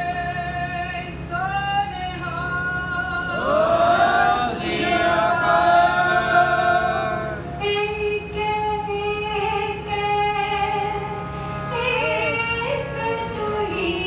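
Sikh kirtan: a woman sings a shabad in long held notes that glide between pitches, over the steady drone of two harmoniums and tabla.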